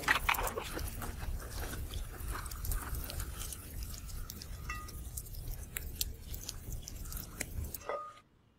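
Crisp crackling and rustling of fresh leafy greens handled and shaken by hand, with many small sharp clicks over a steady low rumble. The sound cuts off suddenly near the end.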